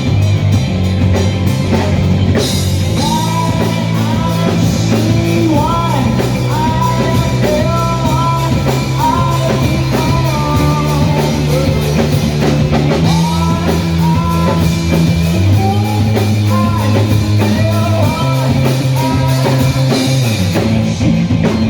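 Rock band playing live: a singer's melody over drums, bass and electric guitar.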